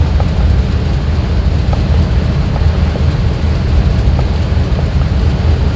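2001 GMC Yukon's 6.0-litre V8 running, a steady low rumble with no break or change.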